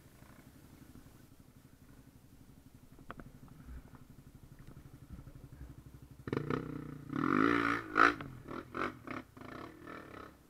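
Dirt bike engine idling low and steady, then from about six seconds in revving hard with rising and falling engine notes and rattling as the bike rides over a rough, rooty trail.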